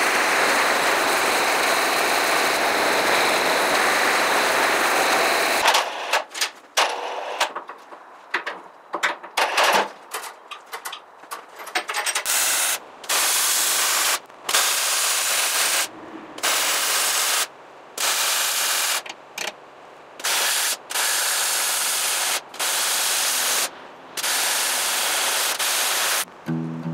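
A propane torch flame burning steadily as it heats the steel cutting-edge plate, stopping about six seconds in. Then arc welding: a few seconds of irregular crackling, followed by about nine welding runs of one to two seconds each, separated by short breaks.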